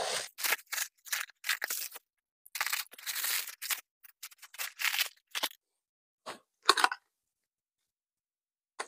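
Plastic wrapping crinkling and tearing in short bursts as steel armour gauntlets are unwrapped by hand. The bursts stop about seven seconds in.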